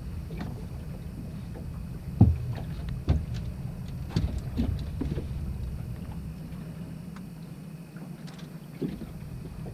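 Hollow knocks and thumps on a fishing boat's deck as a person moves about and handles gear: one sharp thump about two seconds in, a cluster over the next few seconds and a single knock near the end. Underneath runs a steady low rumble.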